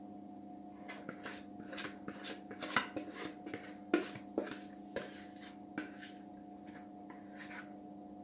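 Wire whisk scraping and tapping against the inside of a plastic mixing bowl as thick cake batter is scraped out: a run of irregular light clicks and scrapes, over a steady low hum.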